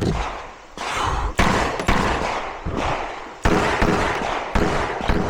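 Rapid 9mm pistol fire from a compensated Glock 19-pattern pistol (PSA Dagger): about seven shots at an uneven pace, some close together, each followed by a long echoing decay.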